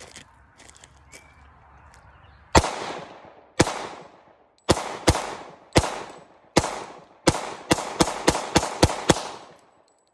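Glock pistol in .40 S&W fired thirteen times, starting about two and a half seconds in. The first shots come about a second apart, then a quick string near the end, each shot followed by a short echo.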